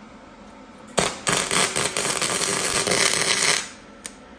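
Flux-core wire welder arc crackling as it burns into thin, rusty sheet metal, held close to blow a hole through on purpose. It starts sharply about a second in, falters briefly, then runs steadily for about two and a half seconds before stopping, and a single short click follows.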